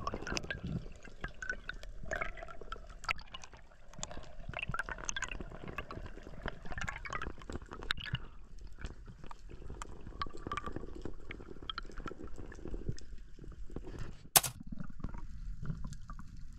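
Underwater sound: gurgling water with many small crackling clicks, and one sharp, loud crack about fourteen seconds in.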